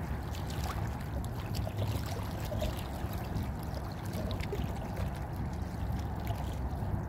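Sea water lapping and splashing at the shore, with small irregular ticks of splashing over a steady low rumble of wind on the microphone.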